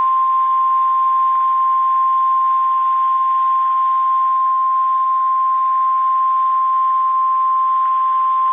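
NOAA Weather Radio warning alarm tone: a single steady 1050 Hz tone held without a break, over faint radio hiss. It is the alert tone that signals a warning message is about to be read.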